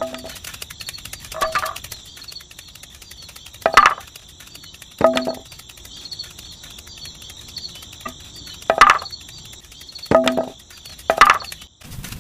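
Seven sharp clinks or knocks, each ringing briefly, spaced irregularly a second or two apart, over steady chirping insects.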